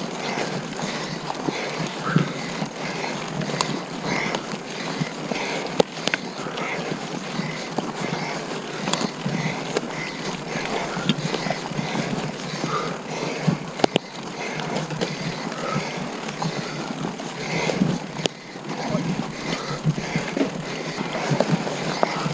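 Mountain bike ridden over a rough dirt trail: a steady rush of tyre and trail noise with frequent knocks and rattles from the bike.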